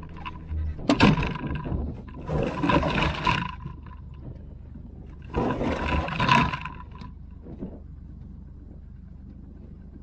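Orange plastic tub being picked up and loaded into the bed of a utility vehicle whose engine hums steadily at idle. A sharp knock comes about a second in, then two rough, noisy stretches of about a second each.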